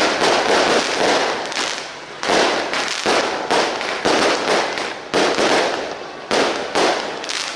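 Fireworks and firecrackers going off in a dense barrage: a sudden bang every half second to a second, each trailing off into crackling.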